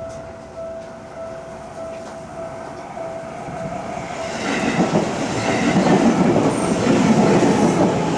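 Level-crossing warning bell ringing in an even repeating ding-ding, then a Seibu Tamako Line train running over the crossing from about four seconds in, its rumble growing loud over the bell.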